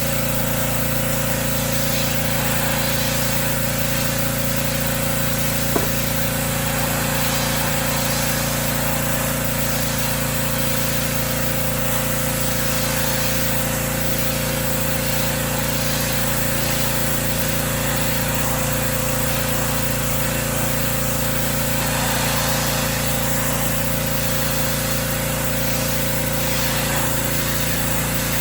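Gas-engine pressure washer running steadily, its engine tone under the hiss of the water jet spraying the deck. There is one brief click about six seconds in.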